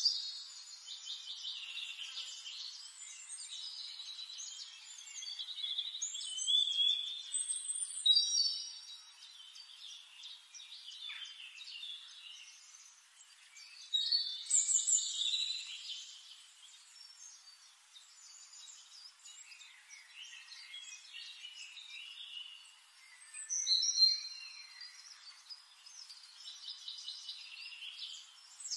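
Several songbirds singing and chirping, with quick trills and short whistled phrases overlapping one another. The song comes in louder bursts about 8, 14 and 24 seconds in.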